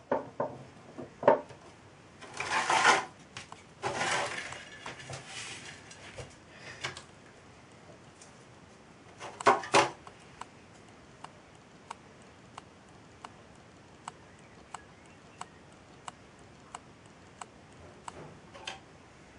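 Small metal tin lid, wooden stick and plastic parts clattering and scraping on a bench as they are handled, in irregular bursts during the first ten seconds. After that come light, evenly spaced ticks, about one and a half a second.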